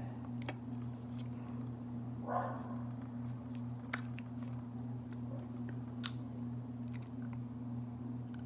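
Someone chewing sticky raw honeycomb wax: a few sharp, widely spaced wet mouth clicks and smacks over a steady low hum.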